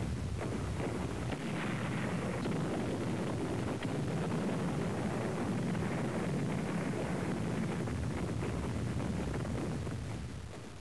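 Battle sound effects: a steady, dense rumbling noise with a few faint crackles, fading out near the end.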